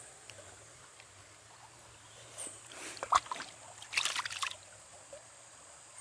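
Quiet riverside ambience: shallow river water trickling faintly, with a thin high insect tone, broken by two short bursts of crackling rustle, with one sharp click, about three and four seconds in.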